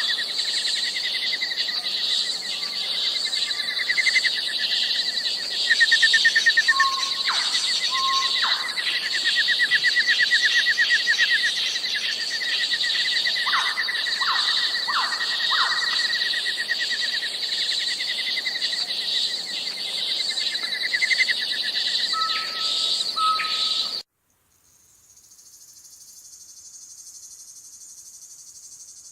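Nature ambience: a dense chorus of insects and birds, with a steady high insect drone, pulsing trills and short whistled notes. About 24 seconds in it cuts off suddenly and gives way to a fainter, high insect chirring.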